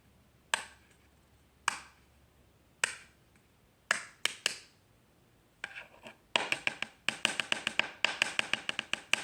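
Sharp tapping clicks: single taps about a second apart, then a quick rattling run of taps, several a second, through the second half.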